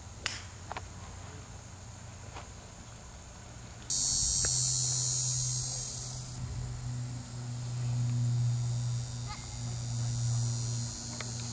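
Loud, shrill insect chorus from summer trees that starts abruptly about four seconds in and carries on steadily, over a low steady hum. A single sharp click comes just before it, near the start.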